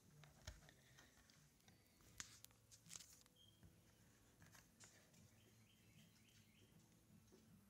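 Near silence: room tone with a few faint clicks and rustles from fingers handling a lump of graphite-acrylic putty with a multimeter probe stuck in it.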